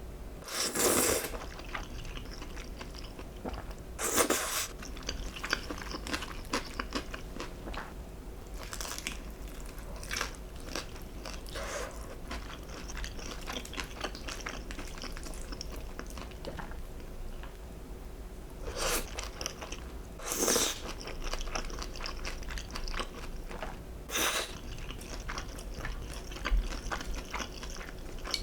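Close-miked eating: a person takes crunchy bites of food, with chewing in between. About six louder bites are spread through, the loudest near the start and around two-thirds of the way in.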